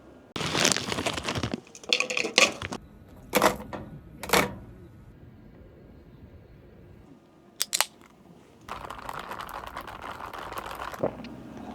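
Crinkling and rustling as things are handled, in several separate bursts with a few short, sharp clicks, then a steadier rustling noise for a couple of seconds near the end.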